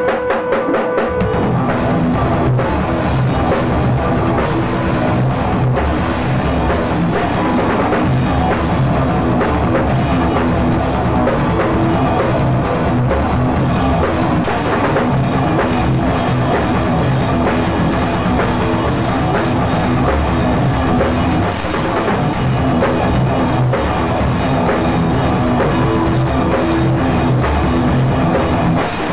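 A djent metal band playing live and loud in a small rehearsal room: a drum kit with kick and cymbals driving under extended-range electric guitars, with a few separate hits in the first second or so before the full band runs on without a break.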